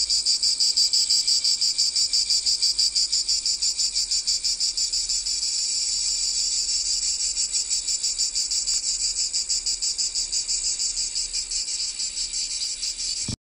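A chorus of cicadas buzzing loudly in rapid, even pulses. It cuts off suddenly near the end.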